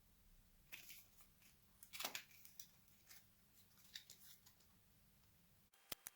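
Faint handling noises of a laptop being taken apart: scattered small clicks and scrapes of tools and plastic or metal parts, the loudest about two seconds in. Near the end the low background hum cuts off and a few sharper clicks follow.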